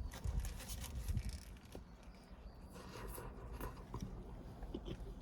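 A person biting into and chewing a cheeseburger close to the microphone: faint, scattered small clicks and soft mouth sounds.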